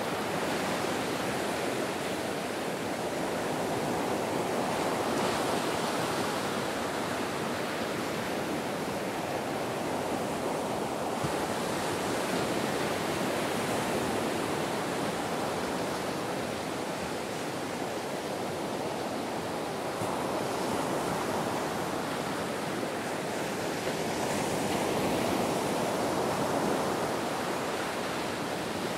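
Ocean waves breaking and washing on a beach: a continuous rush of surf that swells gently a few times.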